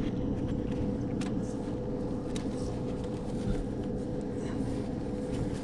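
Steady low mechanical hum with a constant tone, under scattered light clicks and ticks.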